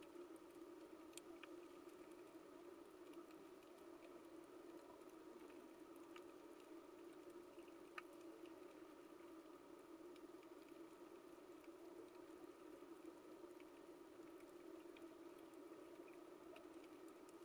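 Faint underwater coral reef ambience: a steady low hum with scattered sharp clicks and crackles, one click standing out about eight seconds in.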